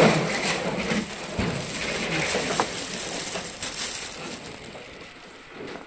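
Thin plastic shopping bag rustling and crinkling as it is handled, a dense crackle that fades away over the last couple of seconds.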